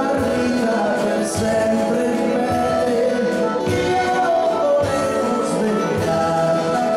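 Live band music from a stage: sustained chords over a steady drum beat.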